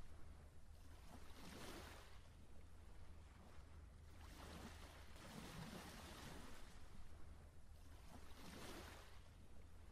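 Faint rushing noise that swells and fades three times, over a steady low hum.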